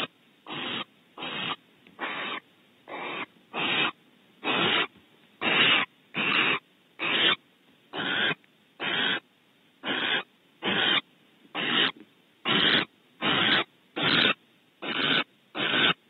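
Barn owl giving rasping, hissing snore calls in a steady series, a little over one a second: the barn owl's food-begging call.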